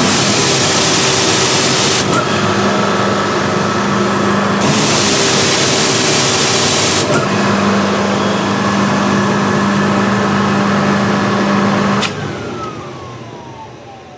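Diesel-heated pressure washer running with its diesel burner firing in the open: a loud steady rushing, with two louder hissing spells of about two seconds each from the lance spraying, and a low hum between them. About twelve seconds in the machine is switched off and a motor winds down with a falling whine.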